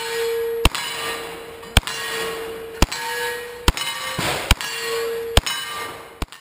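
Thompson-style submachine gun firing deliberate single shots, about one a second. After each shot a metallic ring hangs on and fades, typical of a steel target being hit.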